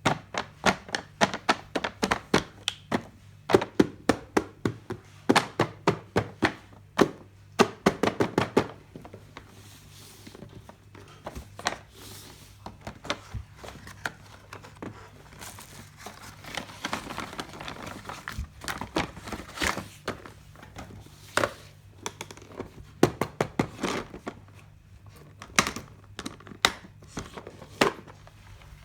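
Plastic toy makeup pieces and their packaging handled up close: a quick run of sharp clicks and taps for the first several seconds, then plastic wrapping crinkling with scattered taps, and a few more clicks near the end.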